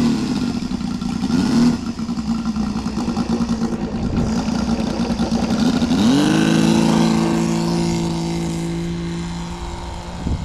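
Saito FG-33R3 three-cylinder four-stroke petrol radial engine on a model aeroplane, running at a low idle, then opened up about six seconds in: its pitch rises and holds steady at the higher speed, fading slightly near the end.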